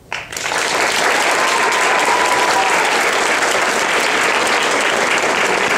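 Large auditorium audience applauding. The clapping swells in the first half second and then holds steady.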